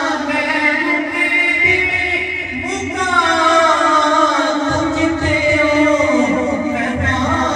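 A voice singing a Punjabi Sufi devotional kalam with musical accompaniment, in long phrases that glide up and down in pitch.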